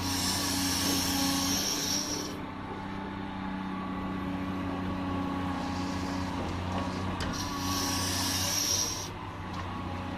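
Cat 345D L excavator's diesel engine running steadily, with two spells of high hydraulic hissing and whine, one at the start and one near the end, as the machine works.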